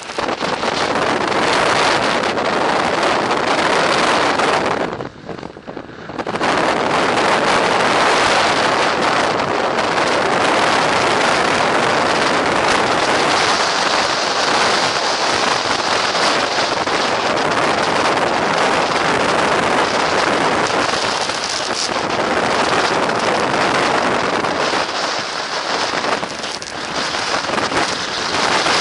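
Storm-force mountain wind, gusting to around 125 km/h, blasting across an action camera's microphone as loud, steady buffeting noise, with a short lull about five seconds in.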